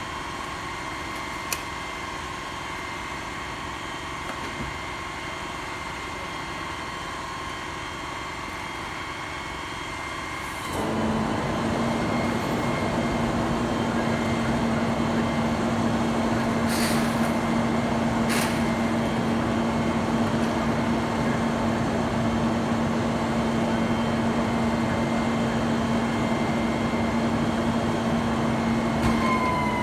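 Rear-load garbage truck's engine running steadily with a thin whine. About eleven seconds in it steps up to a higher, louder steady speed. A few sharp knocks come through, one early and two in the middle.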